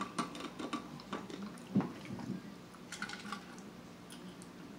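Screw cap of an insulated steel water bottle clicking as it is twisted open, with one firmer knock about two seconds in, then a few soft clicks as he drinks from the bottle.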